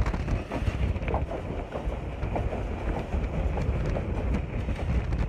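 Passenger train running at speed, heard from inside a coach: a steady rumble of wheels on the rails with light, irregular clatter.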